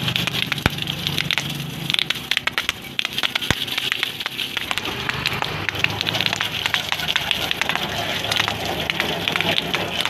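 Water from a hose spraying and splashing over a Toyota Kijang's engine bay, a steady hiss full of quick spattering ticks as the stream hits engine parts and the hood, with a low steady hum underneath.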